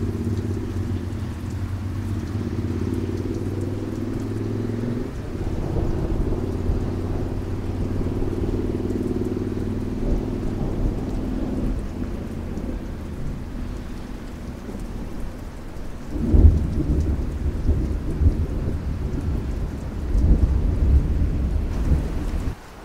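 Thunder rumbling low and long through heavy rain, with a sudden louder clap about two-thirds of the way in and another swell of rumbling near the end.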